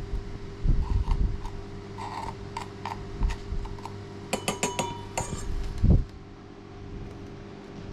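Metal parts of a moka pot being handled: a cluster of sharp, ringing metallic clinks and taps about four to five seconds in, with a few dull knocks, over a steady low hum.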